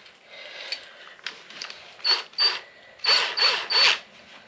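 Power drill fitted with a step bit, run in five short trigger bursts, each whirring up and back down in speed.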